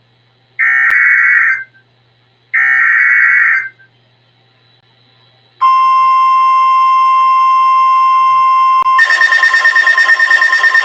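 NOAA Weather Radio alert signal: two roughly one-second bursts of the SAME digital header's buzzy warbling, then after a short pause the steady warning alarm tone starts about five and a half seconds in. About three seconds later a second, rapidly pulsing alarm joins the steady tone, announcing the severe thunderstorm warning that follows.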